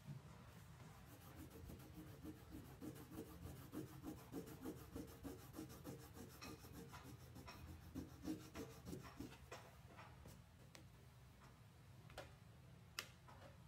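Crayon rubbing back and forth on paper, colouring in with quick repeated strokes, about two a second, that fade out after about ten seconds. A few light clicks follow near the end.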